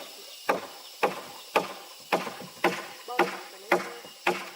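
Wood being chopped with a blade, in quick, steady strokes about two a second, eight sharp chops in all.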